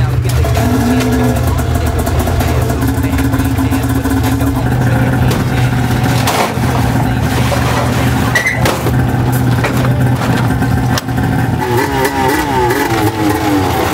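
2003 Polaris RMK 700's carbureted two-stroke engine running steadily, with uneven throttle blips in the last two seconds. A few short knocks come midway.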